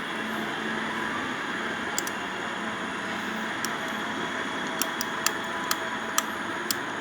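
Hero Honda Splendor motorcycle engine running with a steady hiss and sharp ticks that come about twice a second from around five seconds in: the abnormal noise from the magneto (magnetic coil) side.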